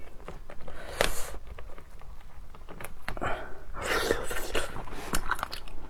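Hands working a cooked crab's shell: short clicks and cracks with two scraping, rustling bursts, the longer one about four seconds in.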